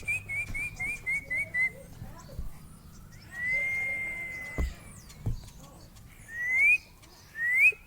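Clear whistled notes: a quick run of about eight short, slightly falling notes, then a long held note a couple of seconds later, then two rising whistles near the end.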